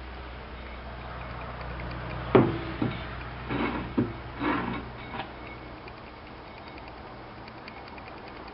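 Engine parts being handled on a workbench: a sharp knock about two and a half seconds in, then a few lighter knocks and short rustles over the next few seconds, over a low steady hum.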